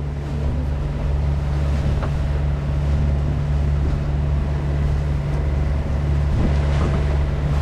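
Dinghy's small outboard motor running at a steady speed, a constant low hum under a haze of water and wind noise.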